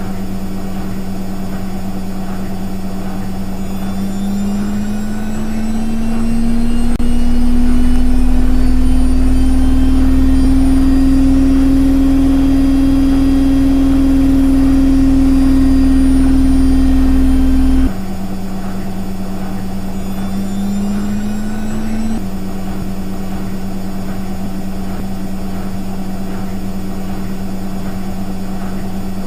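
Washing machine running with its drum turning: a steady motor hum whose pitch rises a few seconds in as the drum speeds up, with a heavy low rumble joining it. About two-thirds of the way through the rumble cuts out suddenly and the hum falls back to its lower pitch, rising briefly once more before settling.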